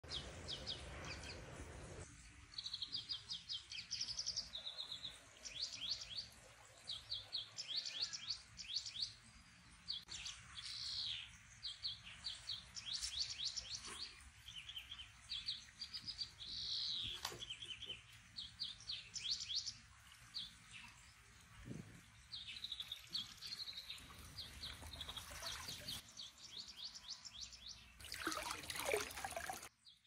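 Small songbirds singing: quick runs of high chirping notes, one after another with short gaps. A brief rushing noise comes in near the end.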